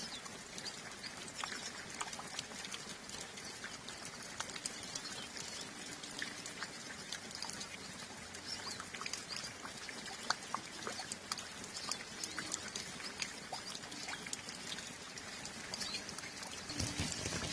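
Steady light rain with water dripping in irregular ticks, and faint chirps of small birds, likely hooded siskins. A louder, lower sound comes in near the end.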